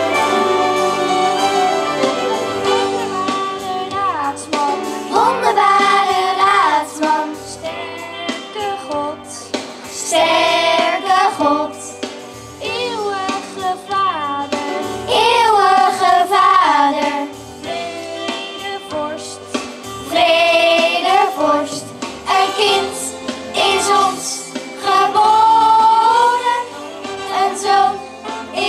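Children's choir singing a song into handheld microphones over an amplified musical accompaniment with a steady bass line.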